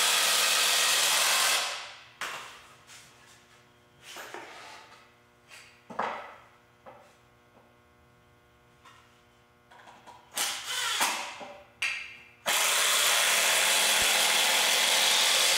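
Cordless impact screwdriver driving wood screws into 2x4 boards: one drive ends about a second and a half in, short knocks and brief bursts follow as the boards are handled, and a second long drive starts near the end.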